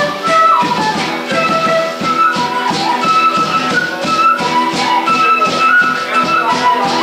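Live folk band playing: a flute carries a high, wavering melody over a strummed acoustic guitar and rhythmic percussion.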